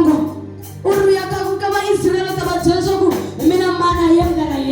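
Worship singing with musical accompaniment: a voice sings held, sliding notes in phrases over a steady low instrumental backing.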